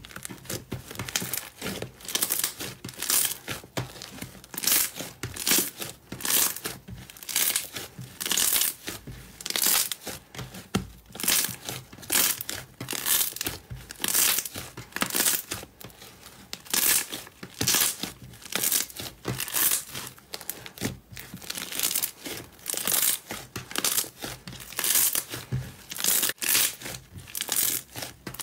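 Slime being squeezed and kneaded by hand, crackling and crinkling in repeated bursts, one for roughly every press, about one a second.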